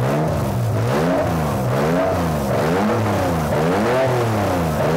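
The Jaguar 3-litre V6 swapped into a Mk1 Mazda MX-5 running and being revved over and over, its pitch rising and falling again and again.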